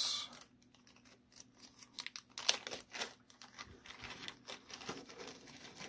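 Small clear plastic bag crinkling and rustling as it is handled, in scattered short crackles.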